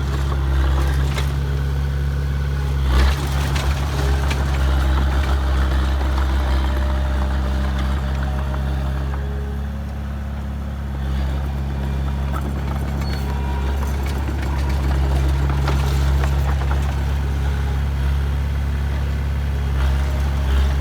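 Heavy diesel engine of earthmoving machinery running steadily, with a sharp clank about three seconds in.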